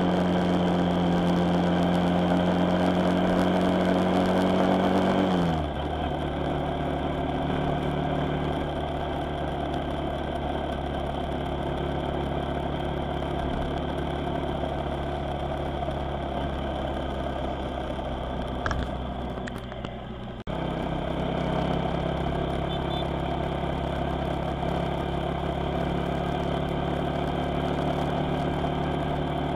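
Engine of the vehicle being driven, running while on the move. Its pitch climbs a little, then drops sharply about five seconds in, and it runs on steadily and lower. A few clicks and a brief dip in level come about two-thirds of the way through.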